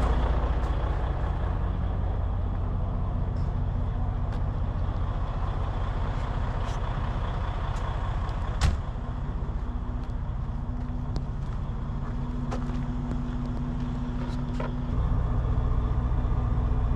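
Heavy-duty truck's diesel engine idling steadily, with one sharp click about halfway through; the engine note gets louder near the end.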